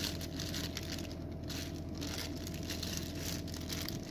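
Faint rustling and handling noises as red chilies are laid on a raw marinated chicken resting on a banana leaf, over a steady low hum that stops near the end.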